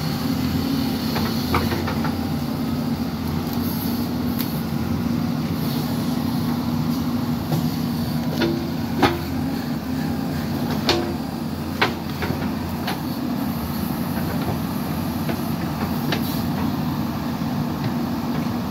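JCB backhoe loader's diesel engine running steadily while the machine works with its front bucket lowered on a dirt track. A few sharp knocks cut through the drone midway, the loudest a bit over halfway in.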